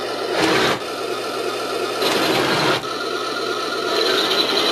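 Heng Long Tiger 1 RC tank's onboard sound unit playing its simulated engine through a small speaker, mixed with the whir of the tank's electric drive motors as it pivots on its tracks. The sound swells louder about half a second in and again about two seconds in.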